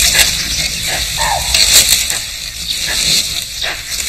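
Dry bamboo and undergrowth crackling and snapping as an elephant pushes through the thicket. One short call sounds about a second in.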